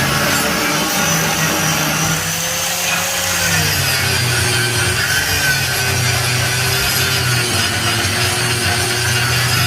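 Metalworking shop ambience: a power tool running continuously on metal, with steady cutting noise and a machine tone that wavers slightly in pitch.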